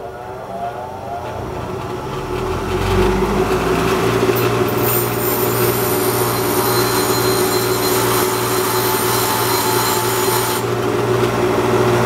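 6-inch bench grinder motor running with a steady hum, just reaching full speed at the start. From about four seconds in, a 10-24 steel screw is ground on the stone wheel, adding a harsh grinding hiss for about six seconds, which stops while the motor keeps running.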